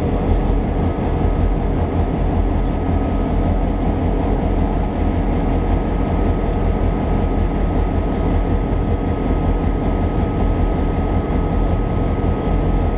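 Diesel locomotive, a GP38-2 with its 16-cylinder EMD two-stroke diesel, running steadily at close range: an even low rumble with a faint steady whine above it, and no horn sounding.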